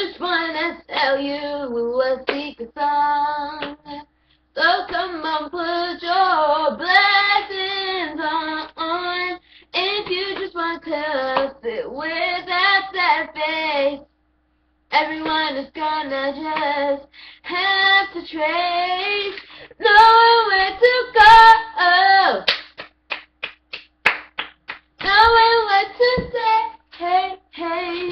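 A young girl singing a self-written song unaccompanied, in short phrases with breaks between them. A few sharp hand claps come near the end.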